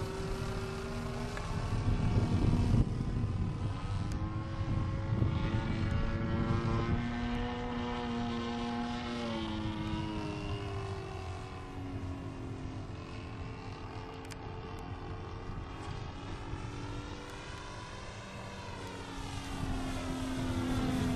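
A radio-controlled Yak 54 model aerobatic airplane's engine and propeller drone in flight, the pitch stepping and gliding up and down several times and rising again near the end.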